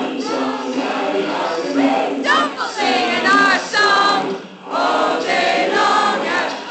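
A large group of students singing and chanting together in parts, many voices at once, with a brief dip about four and a half seconds in.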